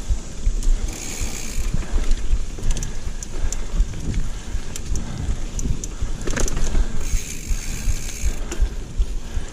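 Mountain bike riding over rough singletrack: the rear hub's freewheel ratchet buzzes while coasting, about a second in and again around seven seconds. Sharp rattles and knocks of the bike over roots and rocks run through it, over a constant low rumble.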